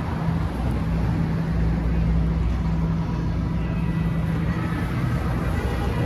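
City traffic noise with a steady low engine hum running underneath.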